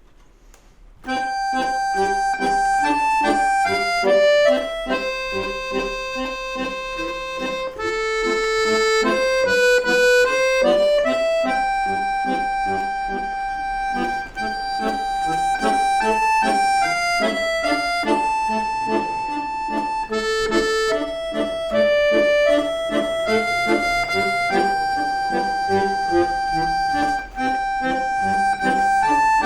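Accordion playing a lively instrumental piece: a melody over a steady, repeating bass-and-chord accompaniment, starting about a second in.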